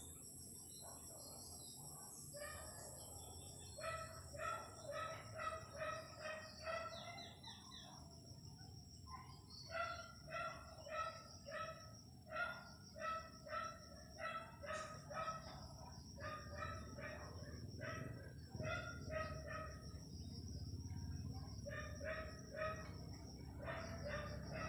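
Domestic chickens calling: runs of short repeated notes, about two a second, with pauses between the runs. A steady high-pitched drone runs underneath.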